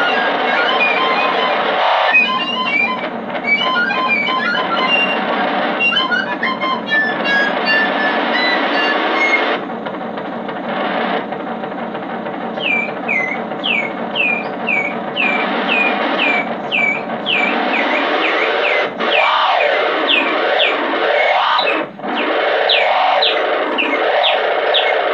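Improvised ambient music: electric guitar through effects and distortion, making a dense sustained drone. About halfway through, a run of short high chirping glides enters at about two a second, and near the end the texture sweeps up and down repeatedly.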